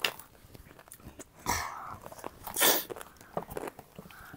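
Close-miked crunching and chewing of chatpate, a crisp puffed-rice and dry-noodle snack, with scattered small crackles and two louder crunches about one and a half and two and a half seconds in.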